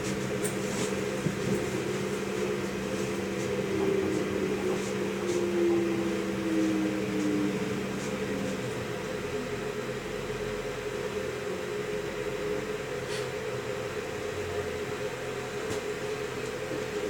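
Cabin of a Pesa Atribo (ATR220) diesel railcar slowing into a station: a steady hum of engine and running gear, with a whine that falls in pitch as the train brakes. About halfway through the lower hum drops away, leaving a quieter, steady cabin hum as the train comes to rest.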